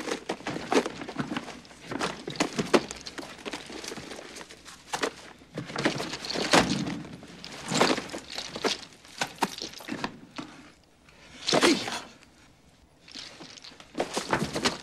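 Rustling, shuffling and knocking of someone rummaging through belongings, in irregular bursts of sharp knocks with quieter gaps between them.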